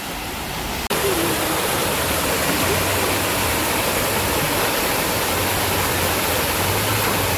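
Public fountain's many water jets spraying and splashing down into the basin, a steady rush of falling water that gets louder about a second in.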